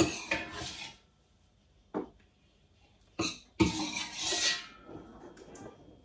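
Plastic food-storage containers and lids being handled on a kitchen counter: a few brief knocks and rustles with short quiet gaps between them.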